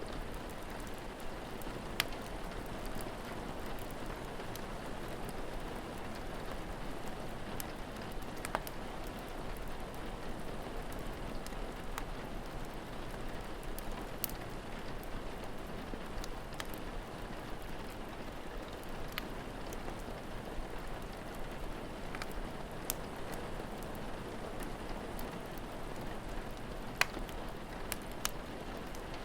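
Steady rain with a crackling fire: a few sharp, scattered pops over the even hiss of the rain.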